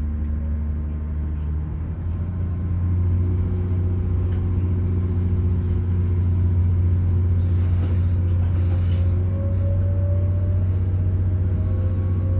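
Inside a Class 802 bi-mode train pulling away: a steady low hum from its underfloor diesel engines and the running gear, with a whine that rises in pitch through the second half as the train picks up speed.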